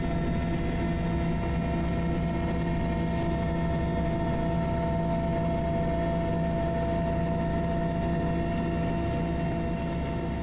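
Steady engine drone of a helicopter heard from inside the cabin: an even noise with several held tones over it.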